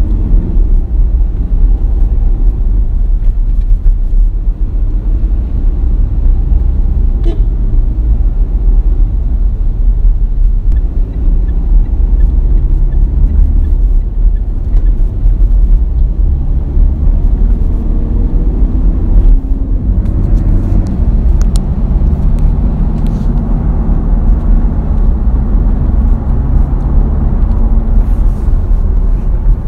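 Mitsubishi Pajero Sport's 2.5-litre four-cylinder common-rail turbodiesel running under way, heard from inside the cabin as a steady low rumble of engine and road noise. About two-thirds of the way in the engine note briefly dips and settles at a different pitch.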